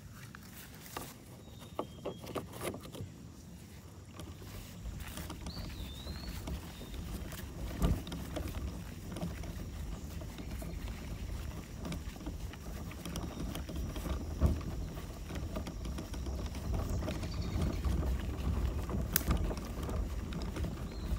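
Kayak paddling on the water: paddle strokes with a low, steady wash that grows after about four seconds, scattered light clicks, and two louder knocks about eight and fourteen seconds in. A short chirp sounds about six seconds in.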